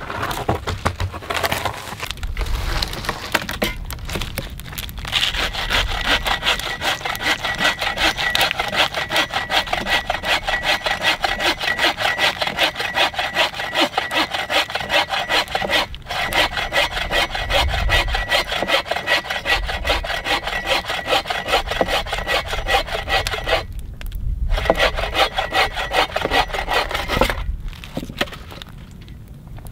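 Metal-framed bow saw cutting through a log, in steady back-and-forth strokes. It breaks off briefly about three-quarters of the way through, then stops shortly before the end.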